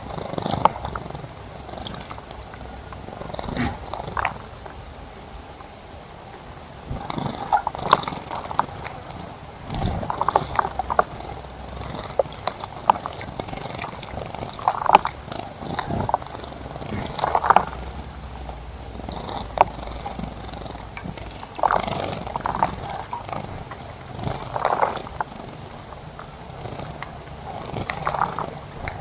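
A small bird bathing in a shallow bird bath, splashing and fluttering its wings in the water in short bouts that recur every couple of seconds.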